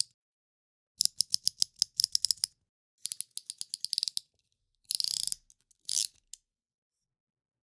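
Snap-off utility knife (cutter knife) blade being slid in or out with its slider, ratcheting through the detents in quick runs of sharp clicks, about a dozen a second, then in several shorter, denser bursts.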